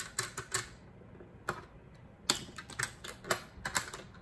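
Plastic Lego pieces clicking and clattering as they are handled, a string of irregular sharp clicks, the loudest a little over two seconds in.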